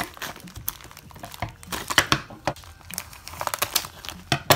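Scissors cutting through a plastic mailer bag, the plastic crinkling as it is handled, with a run of sharp snips; the loudest come about two seconds in and near the end.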